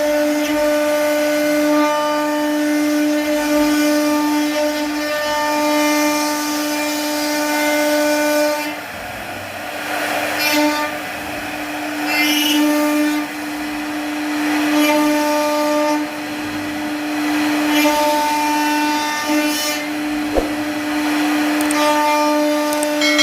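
CNC router spindle running at speed while carving wood, a steady high motor whine with upper tones that come and go as the cut changes. One sharp click about twenty seconds in.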